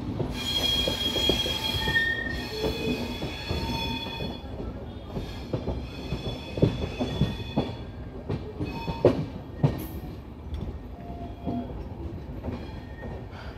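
LHB passenger coach wheels rolling slowly over the rails and junction pointwork, heard from the open coach door. A high wheel squeal sounds in the first few seconds, then comes a scatter of sharp knocks from the wheels, loudest about nine seconds in.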